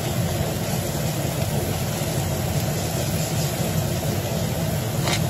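Steady low rumble of kitchen machinery, under chopped onion being stirred with a metal ladle in a hot stainless wok, with a short ladle scrape about five seconds in.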